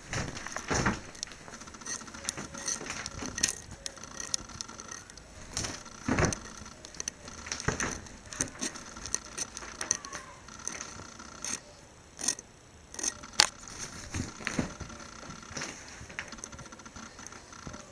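A cat pouncing and scrabbling on a quilted bedspread and blanket: irregular soft thumps, rustles and scratchy clicks, some sharp, coming in uneven clusters.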